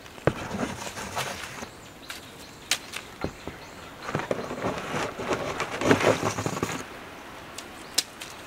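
Arrows being pulled out of a corrugated cardboard target: a sharp click just after the start, then scattered scraping and rustling of cardboard, busiest between about four and seven seconds in as another arrow is worked free.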